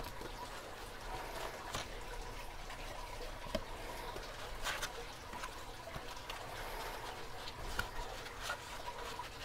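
Faint handling noise of a cardboard box and its foam insert as an electric pick gun and its parts are packed back in: soft rustles and a few light taps and clicks, over a faint steady hum.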